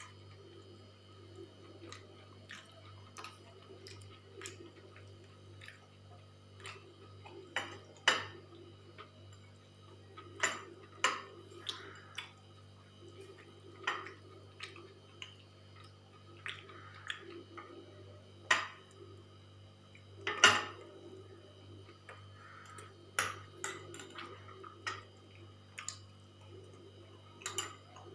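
Scattered clinks and taps of dishes and cutlery during a meal, the sharpest about eight and twenty seconds in, over a steady low hum.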